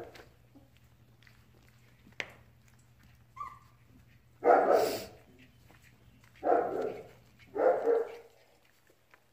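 Weeks-old German Shepherd puppies barking in play. A brief yip comes first, then three short barks: the loudest about four and a half seconds in, and two more close together a couple of seconds later.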